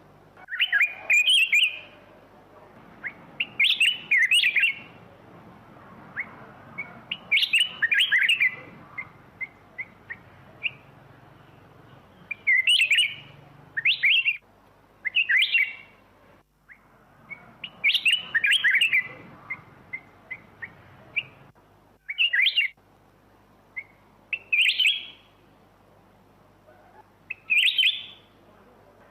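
Black-crested bulbul singing: short, loud warbled phrases of about a second each, repeated every two to four seconds, with fainter single chirps between them.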